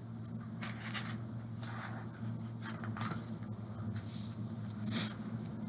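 Pages of a hardcover picture book being handled and turned: scattered soft rustles and light clicks, with two brief swishes about four and five seconds in, over a steady low hum.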